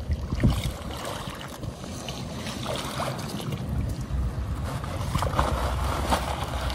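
Shallow river water splashing and sloshing as a large wels catfish is dragged on a rope through the shallows up onto the bank, with a low wind rumble on the microphone in the second half.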